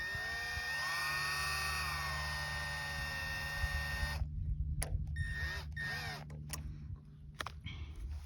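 A small electric motor whines for about four seconds, its pitch dipping about a second in and then holding steady, and then stops. Several clicks and two short whirs follow.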